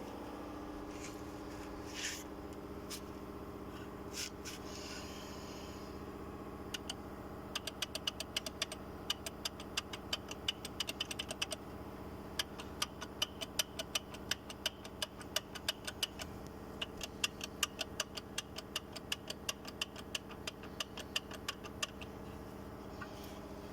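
Audi A4 B6 with a steady engine hum, under which sharp, irregular knocks come several times a second from about seven seconds in until near the end. The owner first thought this knocking came from the suspension.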